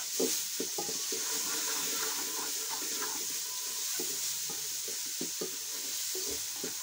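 Chopped onions sizzling in an aluminium pot with a steady hiss while a wooden spoon stirs them, scraping and knocking irregularly against the pot.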